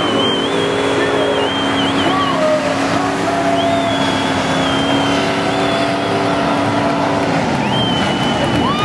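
Dozens of cars doing a burnout at once: engines held at high revs and rear tyres spinning and squealing, in a loud, steady din.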